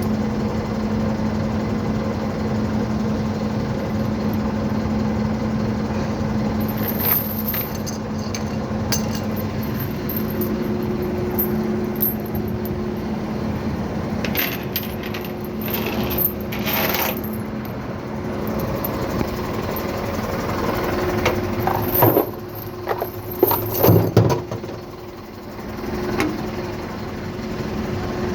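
Tow chains clinking and rattling as they are handled and unhooked, with a few louder metal clanks near the end, over the steady hum of the tow truck's engine running.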